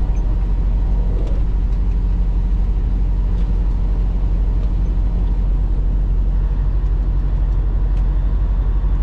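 Semi truck's diesel engine and road noise droning steadily inside the cab at highway speed; the engine note changes slightly about six seconds in.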